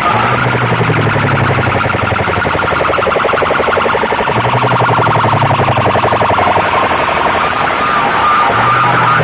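Large loudspeaker sound-system rig playing a loud electronic siren-like alarm tone that pulses rapidly and evenly. A deep bass note comes in three times, about every four seconds.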